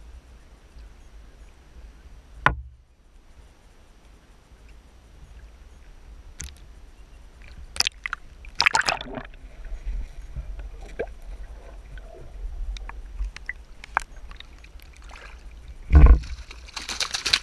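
Water sloshing against a boat's hull over a low steady rumble, with scattered knocks and splashes. Near the end comes a loud splash followed by more splashing as a hooked tuna is grabbed by the tail at the surface beside the boat.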